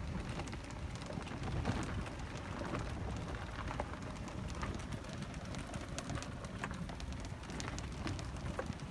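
Low rumble of wind and handling on a hand-held phone's microphone, with scattered irregular crackles and ticks from walking and brushing past palmetto fronds.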